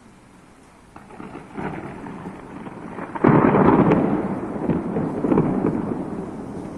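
Thunder: a rumble builds from about a second in, then a loud clap a little after three seconds rolls on and slowly fades.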